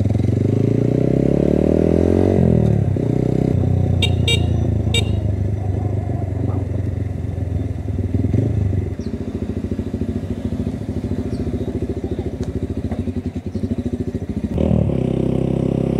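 Cafe 150 motorcycle's 150 cc engine pulling away, its pitch rising for about two seconds, then running steadily under way. Three short high beeps come about four to five seconds in, and the engine is revved up near the end.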